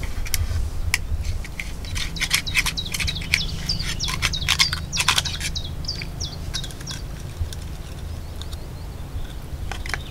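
Small birds chirping in quick, short, falling notes, mixed with sharp clicks and scrapes of scallop shells being prised open with a knife. A steady low rumble sits underneath. The chirps and clicks thin out over the last few seconds.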